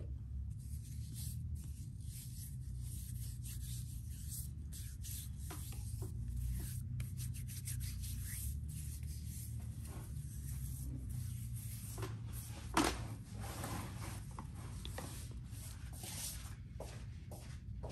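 Irregular rubbing and scraping strokes on a customer's hands and nails during a manicure, over a steady low hum.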